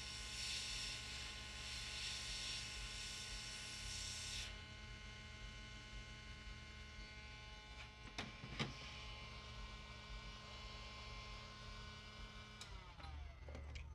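Hot air rework station blowing with a faint steady hiss over an electrical hum while desoldering a MOSFET; the airflow cuts off about a third of the way in. The hum carries on, with two light clicks about two-thirds in and a few tones sliding down in pitch near the end.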